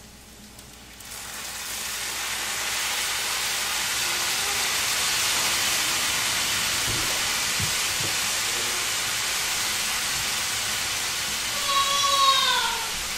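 Rice and raw eggs sizzling in a hot frying pan, the sizzle swelling about a second in as soy sauce is poured onto the hot pan and then holding steady. Near the end a cat meows, with a falling pitch.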